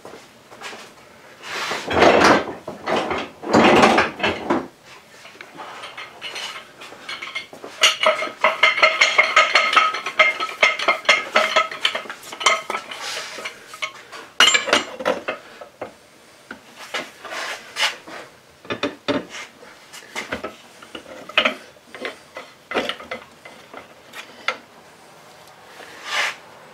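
Metal hand tools clanking and clinking on a workbench as a large pipe wrench is picked up and fitted onto a Stihl cutoff saw: two loud clatters in the first few seconds, then several seconds of quick, ringing metallic clicks, then scattered single knocks.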